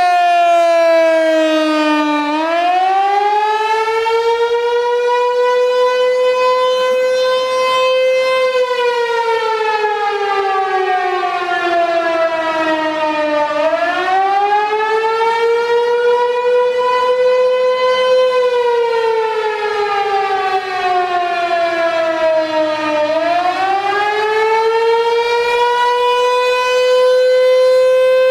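American Signal T-128 outdoor warning siren sounding a wail, the attack signal of an alert/attack/alert test. Its pitch falls, then swings slowly up and down, each rise or fall taking about five seconds. Near the end it climbs back up and holds a steady top note.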